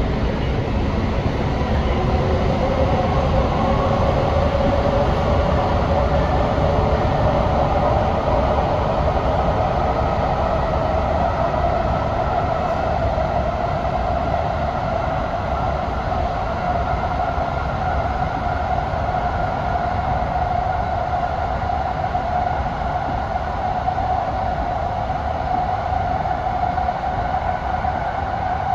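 TriMet MAX light rail train running, heard on board: a motor whine rises in pitch over about the first twelve seconds, then holds steady, over a constant rumble of wheels on rail.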